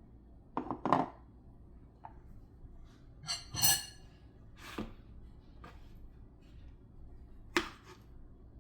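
Kitchen utensils and dishes knocking and clattering during food preparation: about six separate knocks, the loudest about a second in and around three and a half seconds in, where one briefly rings with a clear tone.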